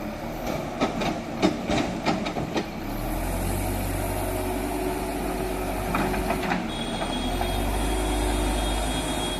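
Heavy diesel machinery working: a run of sharp knocks and clanks, then from about three seconds in a heavy engine pulls up and runs steadily under load, with a few more knocks in the middle.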